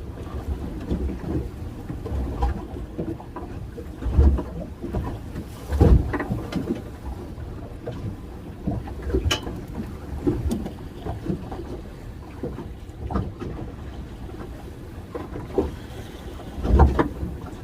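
Wind buffeting the microphone on a small fishing boat in choppy water, with a few low thumps, about four, six and seventeen seconds in, and scattered small knocks.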